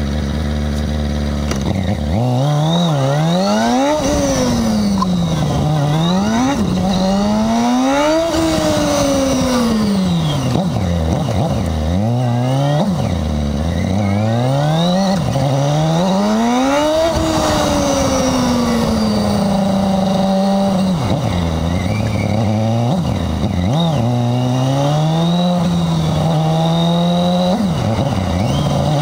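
2009 Yamaha R6's inline-four engine heard from the bike itself: idling steadily for about a second and a half, then revving up and down over and over as the bike accelerates, changes gear and slows.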